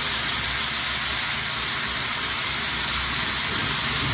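Steady hiss of a pot of chicken stew cooking over low heat on the stove, the seared chicken steaming under layered vegetables.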